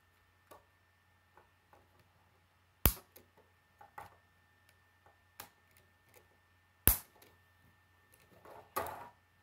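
K'nex plastic rods and connectors clicking and snapping together as they are fitted by hand: two sharp snaps about four seconds apart, among softer clicks and a short rattle of plastic parts near the end.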